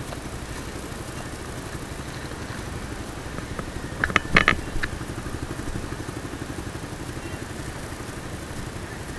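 Motorcycle engine idling steadily with an even low pulsing, with a short cluster of sharp clicks about four seconds in.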